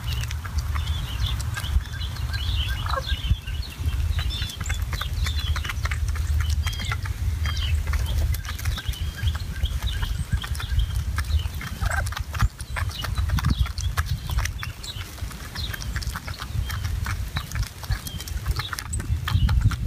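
Wild turkeys feeding on gravel: many quick pecking and scratching clicks, with short chirping calls and a few falling yelps from the flock, over a steady low rumble.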